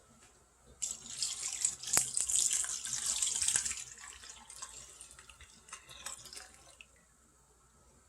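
Kitchen tap water running into a sink. It starts suddenly about a second in, then breaks into lighter splashing and trickling that dies away near the end.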